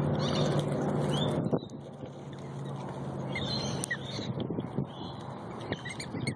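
Prairie dogs squabbling over peanuts on gravel, with short high squeaks and small clicks. A steady low hum underneath stops abruptly with a knock about a second and a half in.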